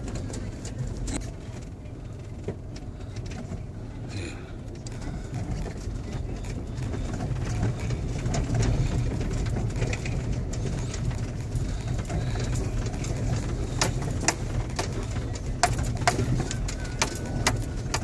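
A car or truck driving, heard from inside the cab: a steady low rumble of engine and tyres, with a run of sharp clicks and knocks in the last few seconds.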